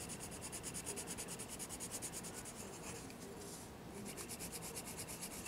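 Colored pencil shading on sketchbook paper: quick back-and-forth strokes, several a second, with a short pause about three seconds in before the scratching resumes.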